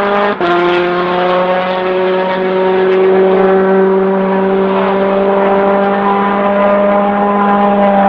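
Rally car engine running hard at high revs, a steady pitched note that cuts out briefly about half a second in and then climbs slowly.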